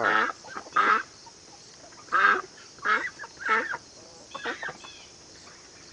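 Poultry calling: about seven short calls with gaps between them, the first two loudest and the rest fading.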